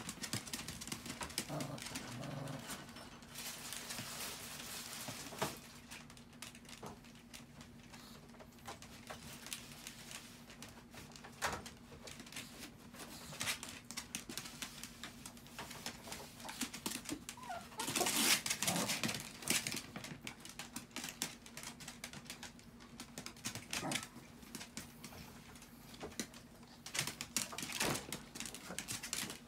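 Small dogs (Chihuahuas) scrabbling about, their claws scratching and clicking on a plastic toilet tray and a tarp, with a few short whimpers. The loudest burst comes about 18 seconds in, over a steady low hum.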